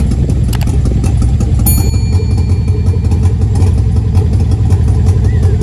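Chevy Silverado's cammed 5.3-litre LS V8 idling steadily just after its first start, still untuned with the new cam breaking in. It is a little loud because of a small leak at one of the headers.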